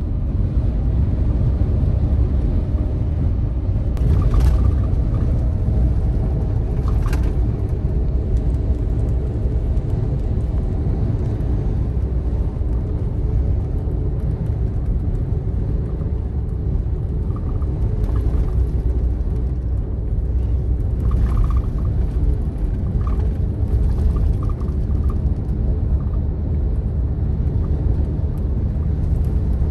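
Steady low rumble of a double-decker highway bus cruising at speed on an expressway, heard from inside the cabin: engine and road noise, with a couple of faint ticks or rattles about four and seven seconds in.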